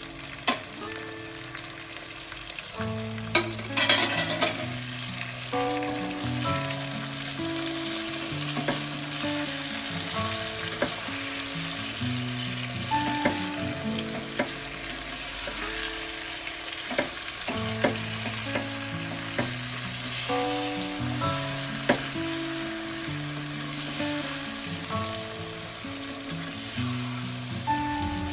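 Green eggplant frying in spice paste in a nonstick wok, sizzling steadily, while a plastic turner and tongs scrape the pan and press the eggplant, with sharp clacks, the loudest ones about four seconds in. Background music with held notes plays underneath.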